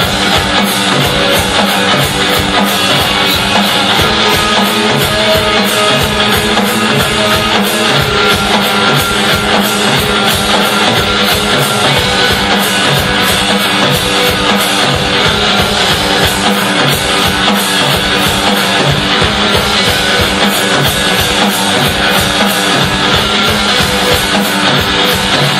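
Loud, dense noise music played live: a distorted, unbroken wall of sound with a fast, even pulse running through it.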